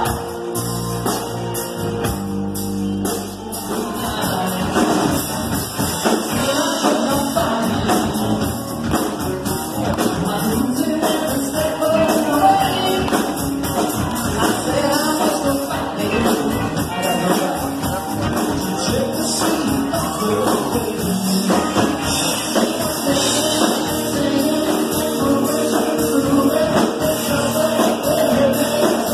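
Live rock band playing: electric guitars and a drum kit, with a male lead singer singing over them.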